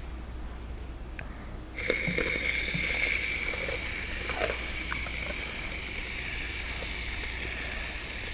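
Aerosol can of Barbasol shaving cream being sprayed: a steady hiss with a thin high whistle that starts about two seconds in, as foam streams out of the nozzle.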